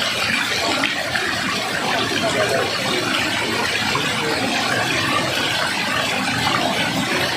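Flowing water rushing steadily and unbroken, as from a waterfall or fast stream.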